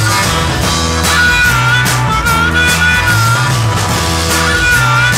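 Live 1960s British rhythm-and-blues band playing a repeating blues riff on electric guitar and bass over drums, the figure coming round about every two seconds, with a wavering high line over it.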